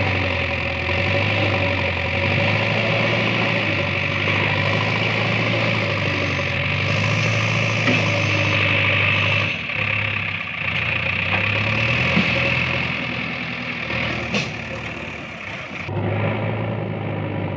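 JCB 3DX backhoe loader's diesel engine running steadily as the machine works, with a couple of sharp knocks. The engine quietens for a few seconds near the end, then runs on.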